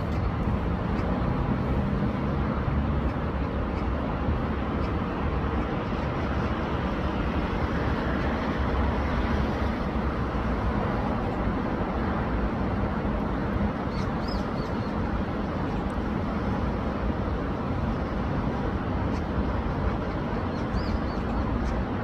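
Swollen, muddy city stream flowing high and fast: a steady, even rush of water with a deep rumble underneath. A few faint high chirps about halfway through and again near the end.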